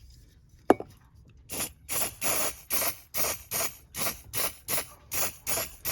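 A single sharp click, then an aerosol can of WD-40 spraying in a rapid run of short hissing squirts, about three a second. The spray is lubricating the dry return spring of a Fiat Mobi's cable-clutch pedal, which has been squeaking.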